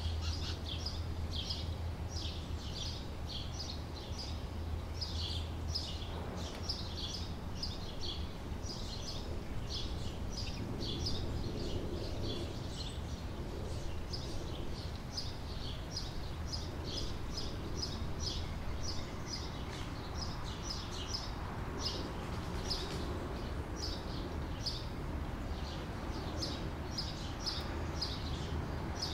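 A bird chirping in a steady, rapid series of short high notes, about two to three a second, over a steady low hum.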